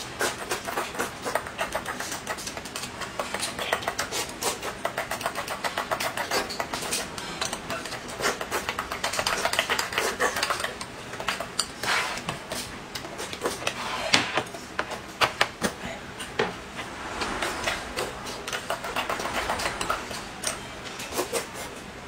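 Close-up eating sounds: noodles being slurped and chewed, a quick patter of wet mouth clicks with louder slurps now and then, and a spoon and chopsticks tapping on a glass cup and porcelain bowls.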